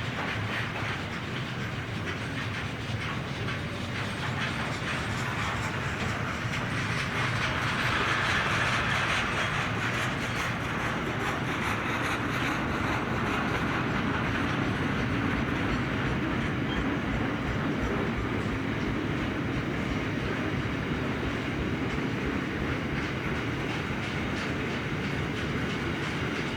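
Container freight train's wagons rolling past, a steady rumble with the wheels clicking over the rail joints.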